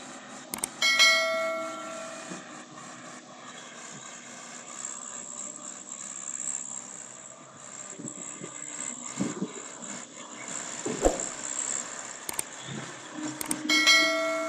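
Two loud metallic clangs that ring on like a struck bell, one about a second in and one near the end, over steady background noise.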